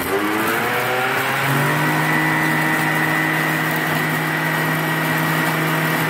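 Blender attachment of a Silvercrest kitchen machine running, blending crêpe batter of eggs, sugar, melted butter, flour and milk in its jug. The motor speeds up, rising in pitch over the first second or so, then runs at a steady speed.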